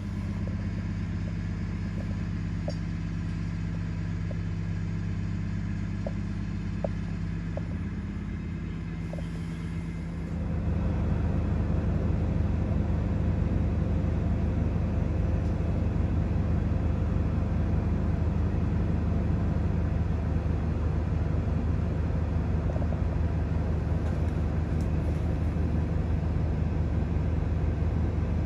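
Steady low vehicle hum and rumble, heard from behind a window, stepping up louder about ten seconds in and then holding steady.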